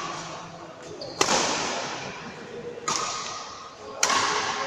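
Badminton rackets striking a shuttlecock during a doubles rally: three sharp hits about 1.2, 2.9 and 4 seconds in, each echoing in a large hall. The last is a smash.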